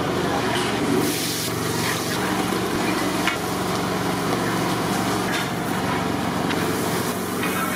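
Cooking in a large aluminium pot on a commercial gas burner: a steady burner roar under the hiss of food sizzling in oil, with a long metal paddle scraping the pot now and then.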